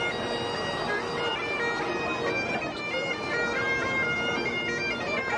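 Bagpipes playing a tune: a steady drone holds under a chanter melody that steps from note to note, with people chattering around it.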